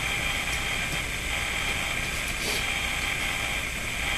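Steady background hiss with a high hum. Under it, a couple of faint soft rustles of gloved hands rubbing wet paper mache strips onto the form.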